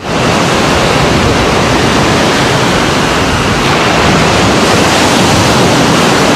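Ocean surf washing up a sandy beach: a loud, steady rush of breaking waves that comes in abruptly at the start.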